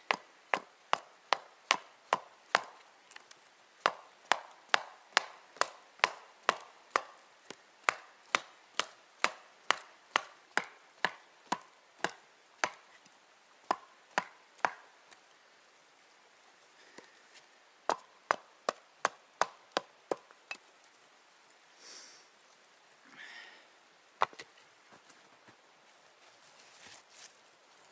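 A hand tool striking wood again and again with sharp, even blows, about two a second. The blows stop about halfway through, then come back as a short run of about six and one last single blow, with a couple of soft scraping sounds in between.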